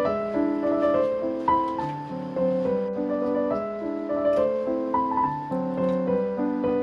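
Background piano music: a gentle melody of held notes over a moving lower line.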